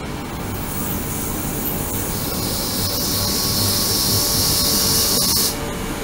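Ultrasonic tank driving the water: a high hiss of cavitation comes in about a second in, grows louder, and cuts off suddenly near the end, over a steady low hum.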